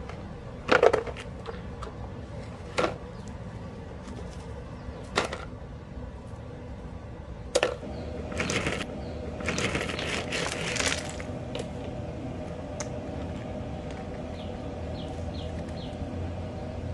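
Gravel stones clattering on a plastic bucket: four sharp clacks a couple of seconds apart as handfuls are dropped in, then gravel poured out of the bucket, rattling for a few seconds onto a plastic sheet.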